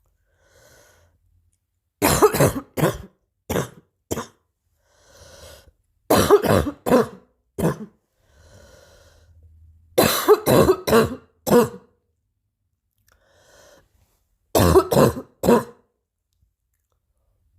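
Coughing in four fits, about four seconds apart, each a quick run of several coughs, with faint breaths drawn in between the fits.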